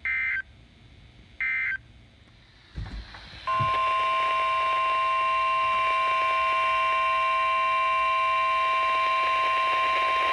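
Emergency alert data bursts: short two-pitch electronic chirps, the last two of a set of three, about a second and a half apart. About three and a half seconds in, a loud steady alert tone starts and holds: the NOAA Weather Radio warning alarm tone announcing a new warning.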